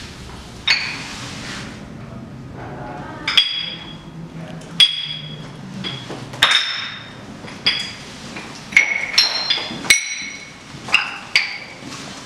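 Loose tuned floor tiles rocking and clinking as a body presses and shifts on them: about a dozen sharp knocks at uneven intervals, each ringing briefly at a clear pitch. The pitch changes from tile to tile, with a quick run of strikes a little after the middle.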